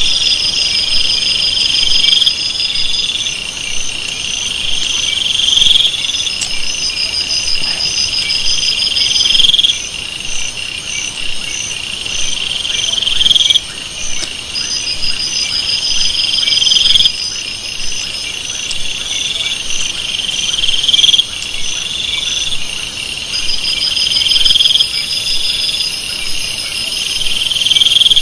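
Forest insect chorus of crickets and similar callers: one buzzing call swells for a couple of seconds and cuts off sharply, again about every three to four seconds, over rapid pulsed trilling higher up.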